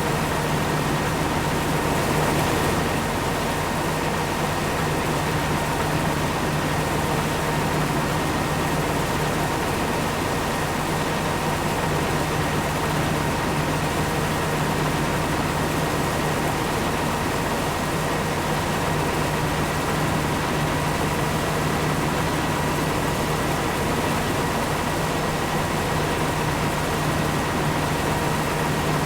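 Corn-harvesting farm machinery running steadily under a constant engine hum, with a faint steady whine over it.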